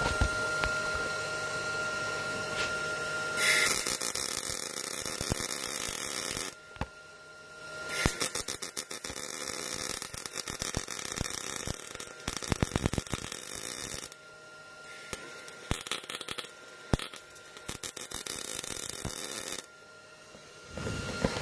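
MIG welding arc from a Miller 211 feeding wire through a Vulcan MIG torch: a crackling, sizzling buzz in three runs of a few seconds each, with short pauses between them.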